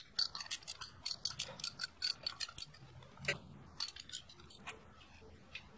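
Socket ratchet clicking in quick runs, several clicks a second, with a short break midway, as a bolt on a motorcycle cylinder head is turned loose.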